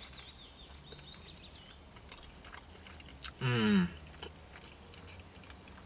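Faint mouth noises of a man biting into and chewing a soft steamed beef dumpling, with small scattered clicks. About three and a half seconds in, a short hummed 'mmm' from the eater is the loudest sound.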